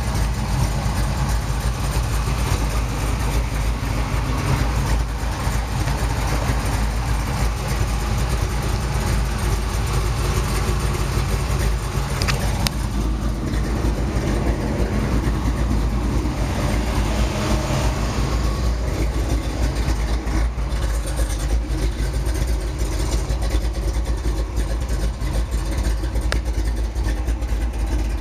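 Car engine idling steadily, a constant deep low rumble.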